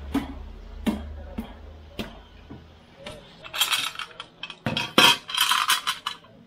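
Metal clinks and knocks, then two spells of bright metallic rattling in the second half, as the oil pan and its bolts are handled and fitted to the engine block.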